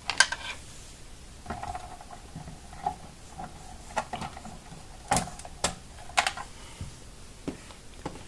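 Irregular clicks and light knocks of a hand handling a cable modem and a home router, switching them off and working at the cables on the router's back.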